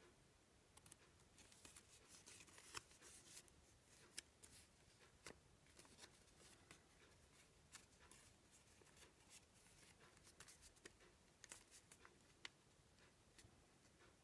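Faint crinkling and rustling of a white paper origami crane being folded and shaped by hand, with many short, irregular crackles.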